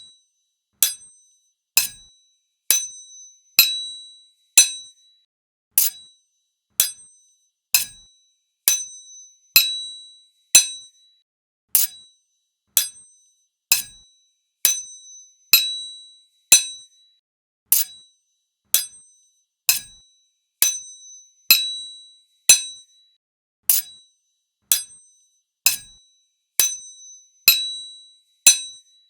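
Sword blades struck together in single clashes about once a second. Each is a sharp metallic clink with a brief high ring, some ringing a little longer than others.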